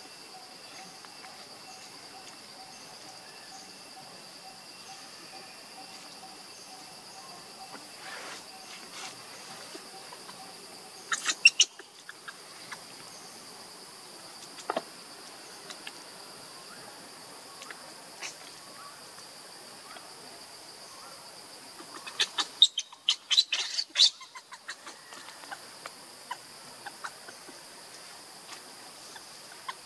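Steady high-pitched drone of insects in the undergrowth, with two clusters of short, sharp, high sounds breaking through, one about eleven seconds in and a longer run of them about twenty-three seconds in.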